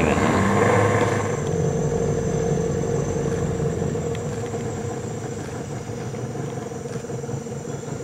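Small boat's outboard motor running steadily with a low hum, gradually growing quieter.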